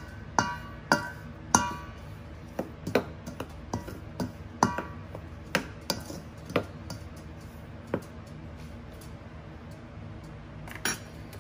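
A utensil clinking against a stainless steel mixing bowl while stirring seasoned flour: sharp clinks with a brief metallic ring, about one a second, growing sparser in the second half.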